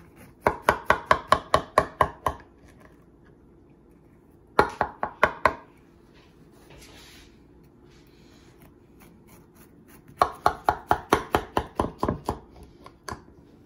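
A knife sawing through the flaky baked top crust of a turkey pot pie, in three runs of quick crunchy strokes, about five a second.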